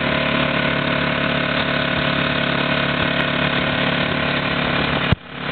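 ATV (quad) engine running at a steady, even speed. About five seconds in there is a sharp click and the sound drops out briefly before the engine returns.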